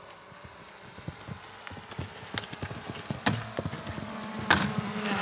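Pony's hooves knocking irregularly on the arena surface and getting louder as it comes nearer, with one sharp knock about four and a half seconds in.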